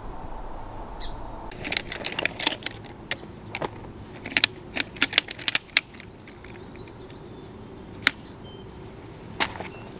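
Shock-corded metal poles of a folding camp chair frame rattling and clicking together as they are unfolded and snapped into place: a quick run of sharp clicks and clatters for about four seconds, then two single clicks near the end.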